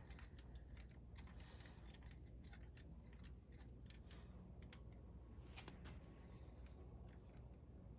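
Small, irregular metal clicks and ticks from a hand-turned installer tool threading a repair insert into a stripped head-bolt hole. One sharper click comes a little past halfway.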